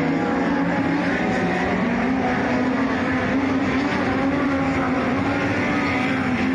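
Speedway race cars running at speed around a dirt oval, a steady loud engine drone whose pitch wavers slightly as they lap.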